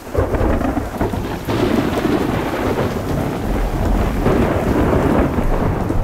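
Thunderstorm: rolling thunder over steady rain, setting in suddenly and going on loud.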